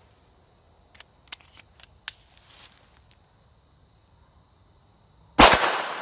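A few faint clicks, then a single shot from a Glock 19 9mm pistol about five seconds in, loud and sharp, with a long echo that fades away.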